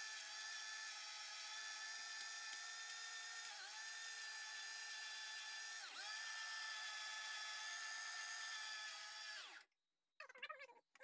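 Electric meat grinder grinding sausage mixture, its motor running with a steady whine whose pitch sags briefly twice under load. Near the end it is switched off, and a few light knocks follow.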